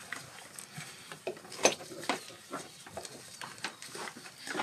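Scattered light metallic clicks and clinks of bolts and hand tools being handled and fitted, the sharpest one about a second and a half in.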